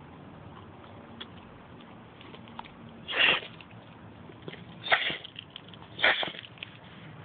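A dachshund sneezing three times in a sneezing fit: three short bursts, the first about three seconds in, the other two close together around five and six seconds in.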